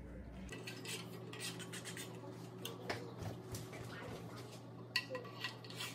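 Faint rubbing and scraping with a few light clicks: a rubber strip being slid along the channel of a Thule WingBar Evo aluminium roof bar.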